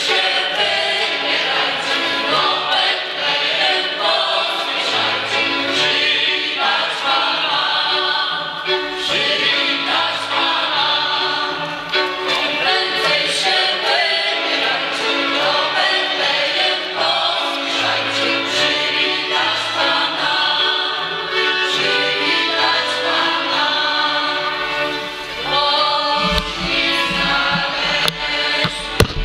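A group of voices singing a Góral highland carol (pastorałka) in the Podhale folk style, in several parts, in a church. A few low bumps come in near the end.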